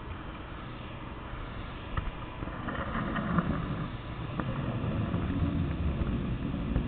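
Steady low rumble with scattered clicks and knocks, getting louder from about two seconds in, from a camera in its housing swinging on a line.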